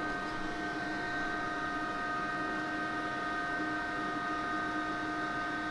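Homemade induction heater running under load with the twin fans of its water-cooling radiator: a steady electrical hum with several steady whining tones over an even fan hiss.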